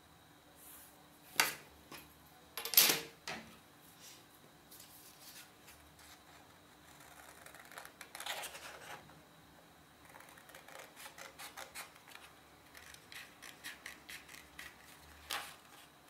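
Two sharp knocks in the first three seconds, the second the loudest sound here, then paper rustling about eight seconds in. Over the last six seconds scissors snip through sheet paper in quick short cuts, several a second.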